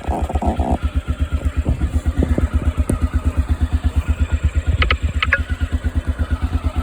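Can-Am DS 250 ATV's single-cylinder four-stroke engine running just after being started, with a steady, fast, even exhaust beat.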